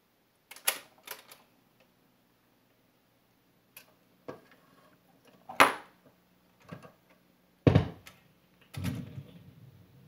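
A vintage Magnevox console stereo being switched on. The knob clicks, and the record changer gives a string of mechanical clicks and clunks, with heavy low thuds near the end. A low steady hum starts about a second in.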